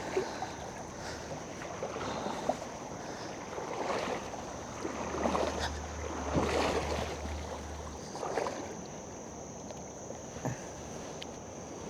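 Water splashing and sloshing around a fishing kayak, in several swells a second or two apart.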